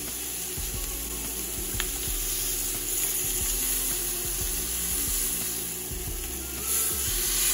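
Beef tenderloin and venison backstrap sizzling steadily as they sear in a smoking-hot cast iron grill pan.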